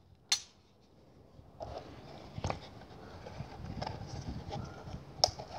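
Hands handling a Glock 17 pistol and a leather holster. There is a sharp click just after the start, then faint rustling with a few light clicks and taps as the gun is set down on a mat and the holster is picked up.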